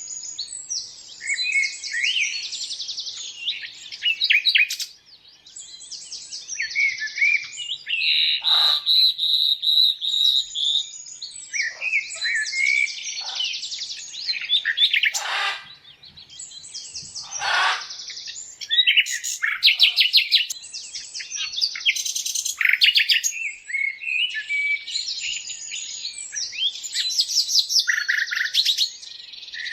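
Several birds chirping and singing rapid trills, their calls overlapping almost without a break. A few harsher calls stand out about nine, fifteen and seventeen seconds in.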